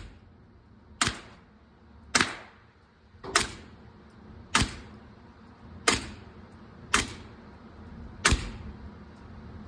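Seven shots from a 9mm pistol, fired at an even slow pace about one every 1.2 seconds.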